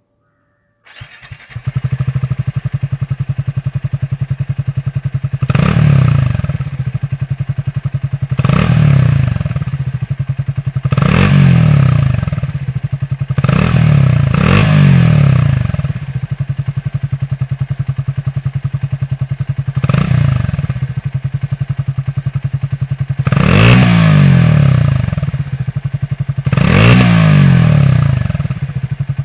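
Triumph Speed T4's 398 cc single-cylinder engine idling through its retuned exhaust, blipped about eight times so the revs rise briefly and drop back to idle. The exhaust is tuned for a bassier thrum, and a heavier crankshaft slows the revs.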